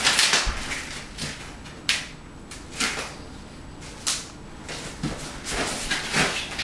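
Backing liner being peeled off a self-adhesive edge strip and the strip handled and pressed onto a plywood subfloor: several short, sharp tearing and rustling noises about a second apart, with a quick cluster of them near the end.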